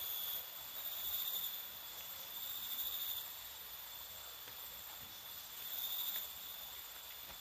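Steady high-pitched insect chorus in forest, swelling and fading in loudness every few seconds.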